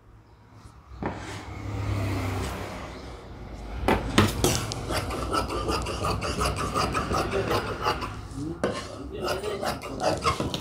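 Scissors cutting through fabric: a run of repeated snipping strokes with cloth rustle, starting about a second in.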